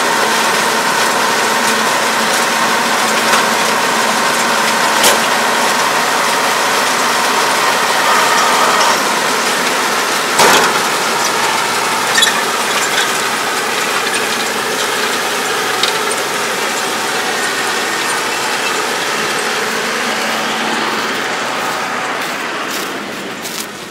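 Kubota tractor engine running steadily while a round baler works rice straw, its gears and chains clattering, with a few sharp clacks about 5 and 10 seconds in. The sound grows quieter near the end.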